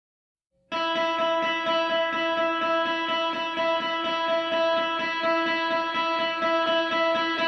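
Background music: a guitar picking a fast, repeating figure over held notes, starting about a second in.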